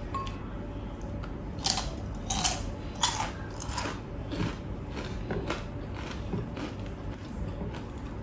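A person chewing crunchy fried food close to the microphone: four loud crunches in quick succession a couple of seconds in, then softer chewing clicks.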